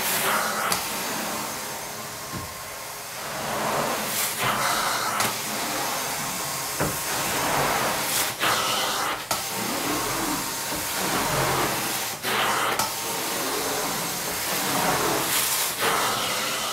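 Hot-water carpet extraction wand sucking air and water up its vacuum hose as it is worked across the carpet: a steady rushing hiss that swells about every four seconds.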